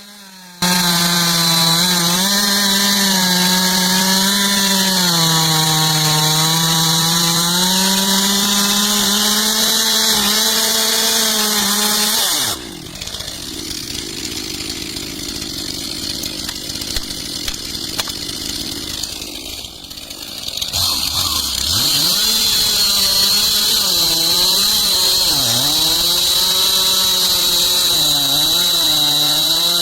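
Stihl MS 362 two-stroke chainsaw cutting into a tree trunk, its engine pitch wavering under load. About twelve seconds in it falls away to a quieter, lower sound for about eight seconds. Then it is back at full revs, its pitch dipping again and again as the chain bites into the wood.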